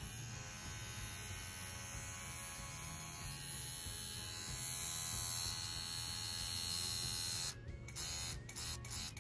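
Bronc V10 Hummingbird rotary tattoo machine with its Swiss motor running with a needle cartridge fitted: a steady, quiet electric buzz, which is called super silent. The sound drops out briefly twice near the end.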